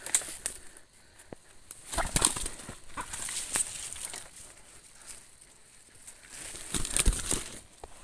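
Flapping wings of a ground bird caught in a leg-noose snare, struggling in several bursts with rustling of dry leaf litter, loudest about two seconds in and again near seven seconds.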